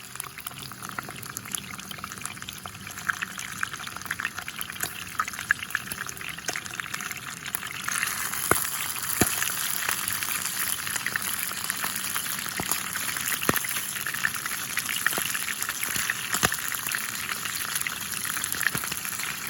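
Food sizzling in hot fat on a grill: a steady hiss with scattered sharp pops and spits, growing louder about eight seconds in.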